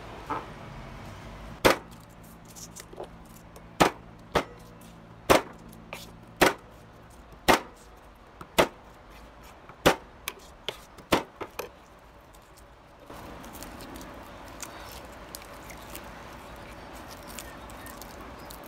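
Chef's knife striking a thick wooden cutting board as pork and garlic are cut: a dozen or so sharp knocks about a second apart, coming quicker in a short cluster past the middle. After that only faint light handling noise is left as garlic cloves are peeled by hand.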